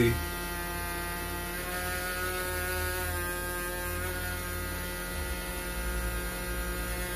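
Steady electrical hum and buzz with a stack of higher tones above it, from the homemade step-up generator circuit running under an LED load. The low buzz changes character about five seconds in.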